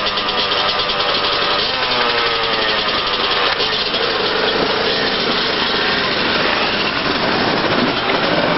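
Several enduro motorcycle engines running together, revving up and down, with one engine's pitch climbing about two seconds in.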